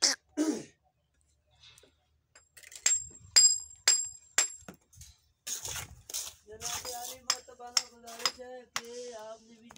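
A few sharp metallic clinks with a short high ring, about half a second apart, then a man talking with more clicks under his voice near the end.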